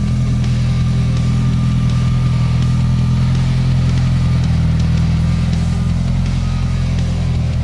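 1985 Ferrari 308 Quattrovalvole's V8 engine idling steadily as the car rolls slowly out of a garage.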